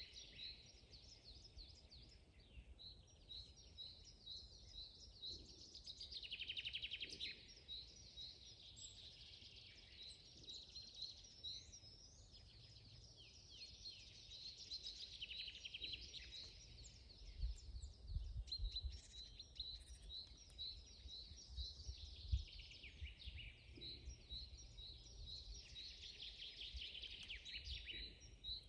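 Faint forest birdsong: several small songbirds singing, with strings of short repeated high notes and rapid trills. A few low thuds come through in the second half.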